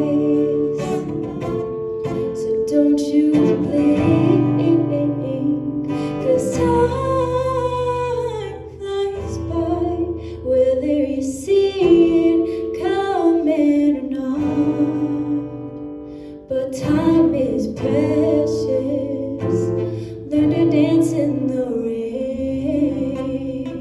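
A woman singing a song into a microphone over strummed acoustic guitar, her voice carrying long held notes.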